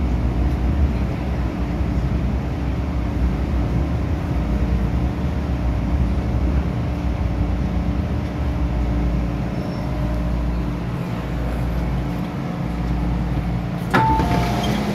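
An MTR M-Train electric multiple unit running with a steady low rumble and motor hum as it slows alongside the platform. Near the end there is a sudden clunk and short two-note tones as the doors open.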